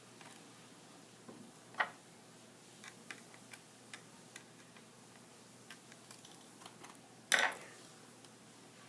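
Light clicks and taps of a laptop's plastic casing and small parts being handled during disassembly, with a sharper click about two seconds in and a louder knock near the end.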